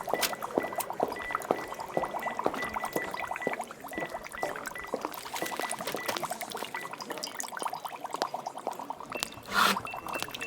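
Laboratory ambience sound effect: liquid bubbling and pouring with many small clicks, over a thin high electronic tone that keeps breaking on and off. A short, louder burst of noise comes near the end.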